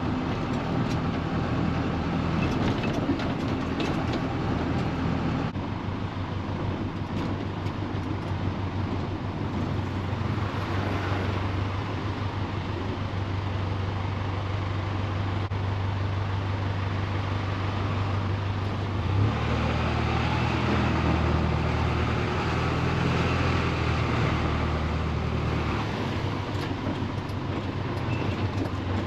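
Engine and road noise of a vehicle driving, a steady low hum that grows louder and fuller for several seconds about two-thirds of the way in.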